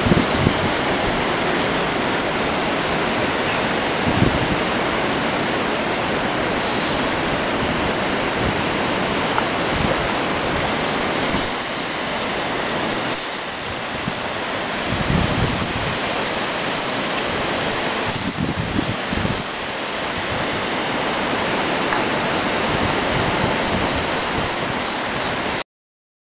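Fast-flowing river water rushing steadily, with gusts of wind buffeting the microphone now and then. It cuts off abruptly near the end.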